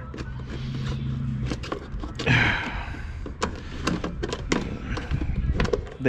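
Screwdriver working the bolts of a plastic fuse box cover: scraping and rasping, loudest about two seconds in, then a run of small clicks and taps.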